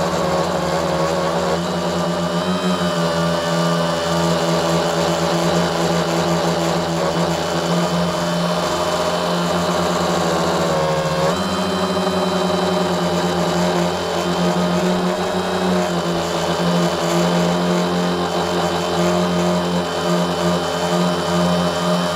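A tricopter's three electric motors and propellers whirring steadily in flight, heard from the camera mounted on the craft. Their pitch wavers with the throttle, dipping briefly and climbing again a little after halfway.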